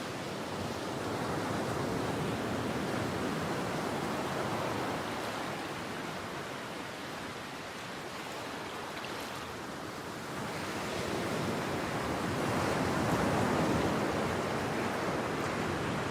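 Ocean waves washing onto a shore, a steady rush of surf that swells and eases slowly, loudest about two-thirds of the way through.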